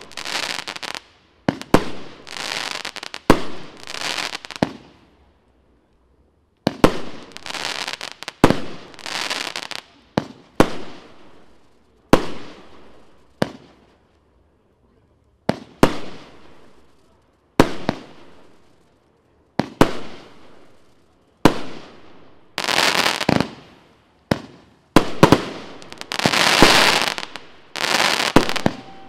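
Evolution Fireworks 'Golden Age' firework going off: volleys of sharp bangs, each trailing off in a fading hiss over about a second, with short silent pauses between volleys and the densest run of bangs near the end.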